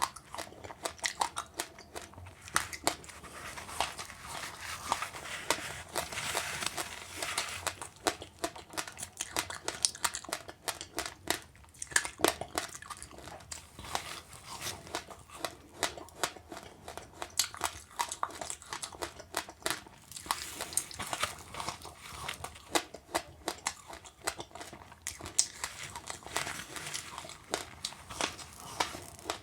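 Close-up chewing and crunching of passionfruit pulp and seeds mixed with sesame seeds: a dense run of sharp crackles and small crunches throughout.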